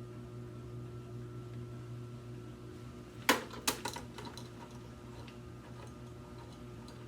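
Handling of a vintage Hoover upright vacuum: a sharp click about three seconds in, followed by a few lighter clicks and rattles, over a steady low hum.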